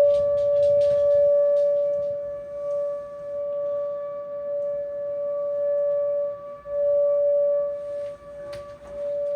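Outdoor tornado warning siren sounding one steady tone, swelling and fading in loudness. A few short clicks in the first second or so.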